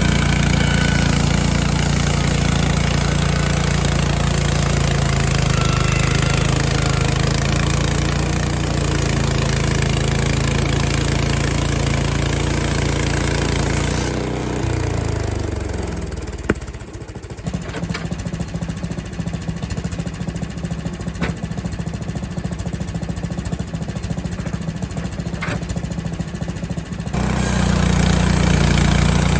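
Frontier OS23 sawmill's engine running hard for about the first fourteen seconds, then dropping over a few seconds to a lower, pulsing idle with a few clicks. It revs back up about 27 seconds in.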